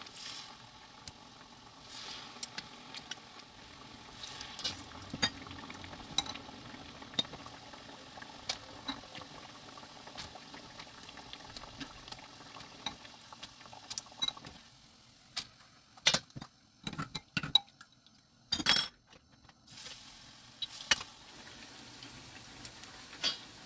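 Battered sweet potato slices deep-frying in oil: a steady sizzle with scattered crackling pops. In the second half the sizzle drops lower, and metal tongs click against the pot a few times as the pieces are turned.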